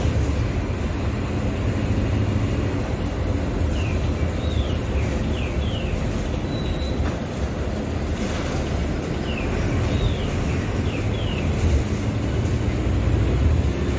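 Mercedes-Benz OF-1721 BlueTec 5 bus's four-cylinder diesel engine running with a steady low drone that swells and eases a little. Short high falling squeaks come through twice, in small clusters.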